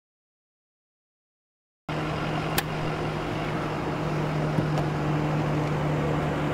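Dead silence for about two seconds, then a parked car idling with a steady low hum under outdoor background noise. A sharp click comes shortly after the sound starts, with a few faint ticks later.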